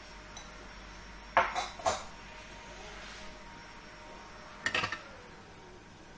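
Metal teaspoon and small metal bowl clinking against kitchenware: two sharp clinks about a second and a half in, then a quick cluster of clinks near the end.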